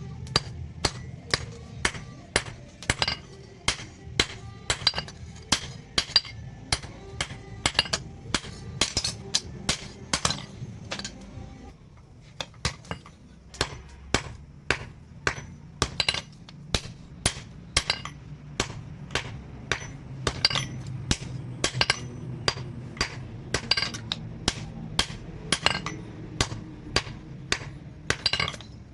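Hammer blows on steel at an anvil, forging leaf-spring steel: a steady run of ringing strikes about two a second, with a short pause about twelve seconds in before the blows resume.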